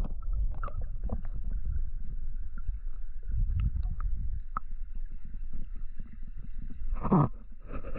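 River water heard underwater: a muffled low rumble with scattered small knocks and clicks, and a louder surge of sound about seven seconds in.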